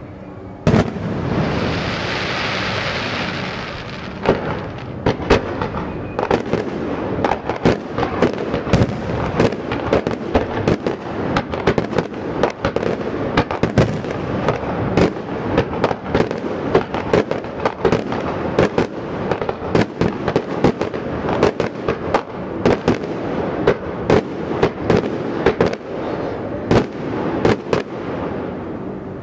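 Fireworks going off: a sharp bang about a second in, a hiss over the next few seconds, then continual rapid crackling bangs with louder reports scattered among them.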